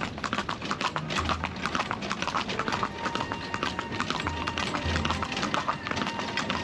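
A carriage horse's hooves clip-clopping steadily on a paved road as it pulls a carriage along.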